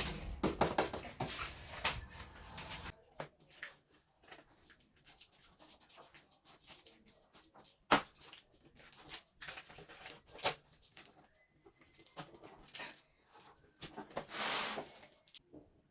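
Intermittent handling noises: scattered clicks and rustles, busier in the first few seconds, with one sharp knock about eight seconds in and a short rustling burst near the end.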